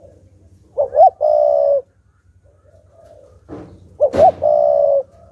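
Spotted dove cooing: two phrases about three seconds apart, each two short rising notes followed by one long level note.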